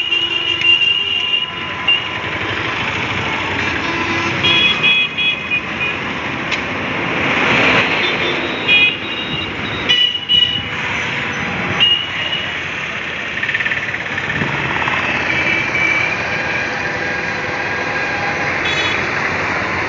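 Road traffic heard from a moving vehicle: steady engine and road noise, with many short horn toots of different pitches from the surrounding vehicles.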